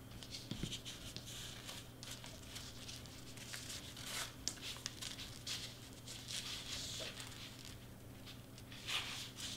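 Crepe paper rustling and crinkling faintly as hands press and fold strips of it onto foam board, in short scattered rustles.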